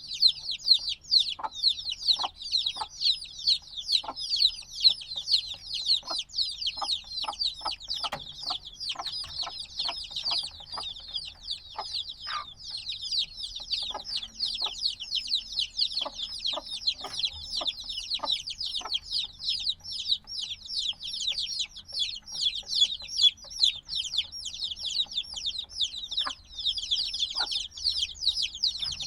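A brood of chicks only a few days old peeping constantly, many high, short, falling chirps overlapping without pause, with scattered light ticks among them.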